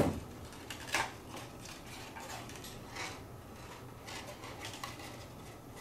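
A short knock as a plastic glue bottle is set down on the table, then soft handling sounds of cardstock being folded and pressed into a box, with a small tap about a second in and another about three seconds in.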